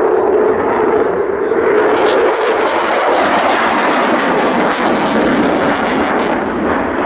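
Display aircraft engine running steadily as the plane flies its airshow routine, with a steady hum in the first two seconds.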